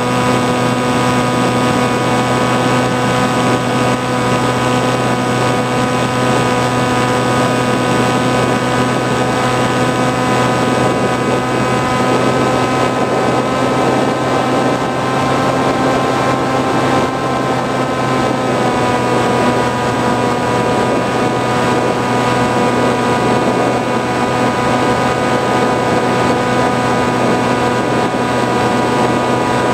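An FPV flying wing's motor and propeller, heard from the onboard camera, give a steady, even-pitched drone in cruise. The pitch rises slightly around the middle and eases back down a few seconds later as the throttle changes.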